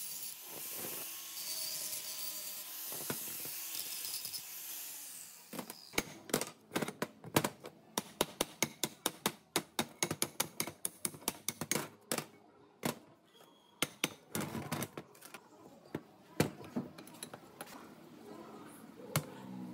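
Angle grinder cutting metal, a steady high hiss for about the first five seconds. It stops, and a quick run of sharp metallic clicks and knocks follows, several a second, as rusty metal machine parts are handled and fitted together.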